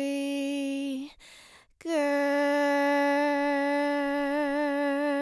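A woman singing long held notes unaccompanied: a short held note, a break of under a second, then one long sustained note on the same pitch with a vibrato that widens near the end.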